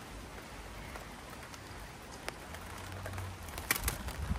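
Steady rain falling, an even hiss with a few sharp ticks in the second half.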